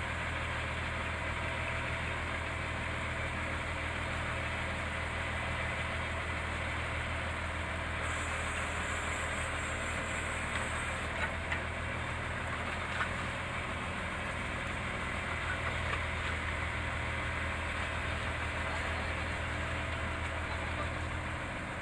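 Heavy diesel engine running steadily at a low, even idle, with a few faint clicks partway through.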